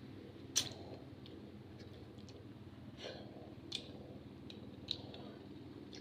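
Close-up eating sounds of cooked moringa pods being bitten and chewed: a few sharp clicks and small crunches spread unevenly over the seconds, the loudest about half a second in.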